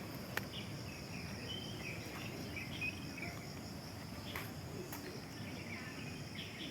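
Outdoor ambience of insects droning steadily on one high note, with short bird chirps scattered through it and a few sharp clicks.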